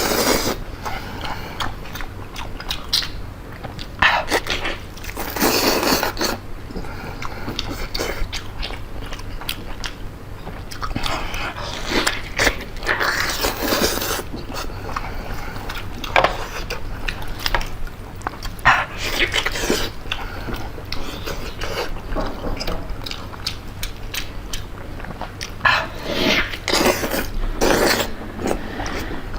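Close-miked eating sounds: biting into and chewing tomahawk steak, with a continual run of small mouth clicks and louder bites every few seconds.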